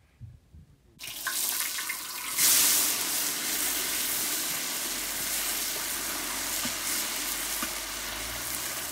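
Diced food sizzling in hot oil in a large wok over a wood fire, stirred with a wooden spatula. The sizzle starts suddenly about a second in, jumps louder about two and a half seconds in, then holds steady.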